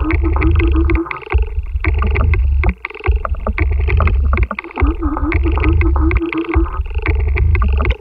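Music built from insect sounds. A repeating pattern of deep low pulses under dense clicking, with a short warbling line near the start and again about five seconds in.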